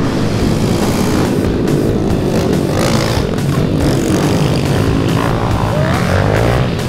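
A pack of small motorcycles racing off the start together: several engines revving at once, their pitches overlapping and rising and falling as the riders open the throttles.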